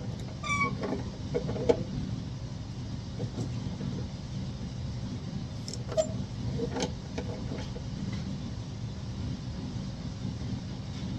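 A few sharp metallic clinks and clicks, one ringing briefly, over a steady low hum.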